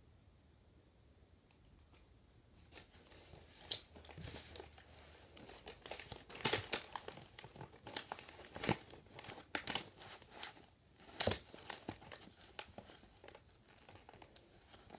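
Tissue packing paper in a cardboard box crinkling and rustling in irregular bursts as hands fold it back, beginning about three seconds in.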